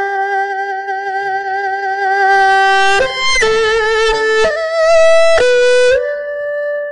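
Solo erhu played with the bow: a slow melody of long held notes with vibrato, stepping to new notes several times in the second half.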